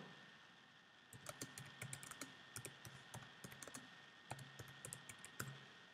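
Faint typing on a computer keyboard: an irregular run of keystrokes starting about a second in and stopping just before the end.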